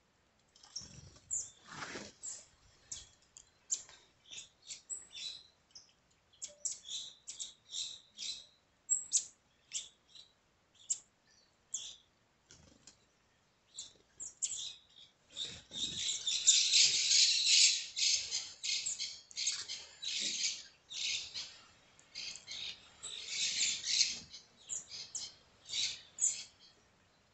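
Flock of green-headed tanagers giving short, high, thin chirps one after another, thickening into a dense run of overlapping calls about halfway through and again near the end.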